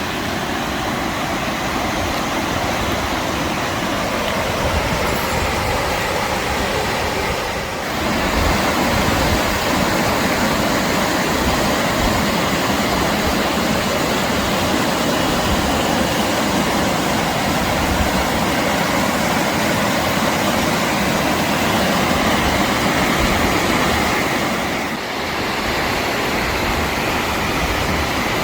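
Steady, loud rush of fast-flowing river water and waterfall, a constant roar with a deep rumble underneath, briefly dipping twice.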